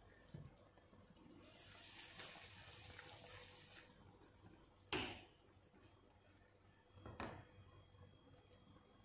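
A pot of vegetable broth simmering on a gas hob, a soft hiss for about two seconds, then two sharp knocks of cookware about two seconds apart, the first louder.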